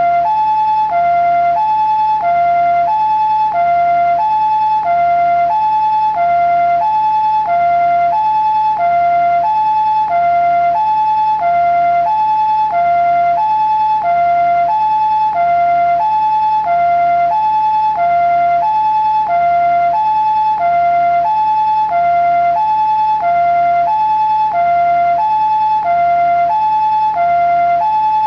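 Japanese ambulance siren sounding its two-tone "pee-po" call: a higher and a lower tone alternate evenly, about one pair every second and a quarter. It repeats steadily with no change in pitch or loudness.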